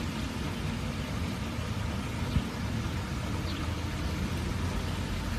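Steady low rumbling background noise, with a faint tap about two seconds in.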